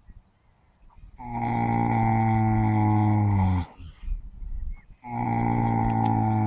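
A sleeping horse snoring: long, low, pitched snores. The first lasts about two and a half seconds and drops in pitch as it ends, and the next starts after a pause of about a second.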